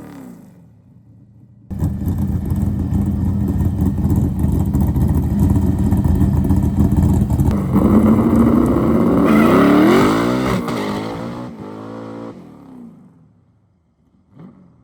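Drag car's engine under hard acceleration on a test pass, starting suddenly loud, its pitch climbing about eight seconds in, then fading away near the end as the car pulls off.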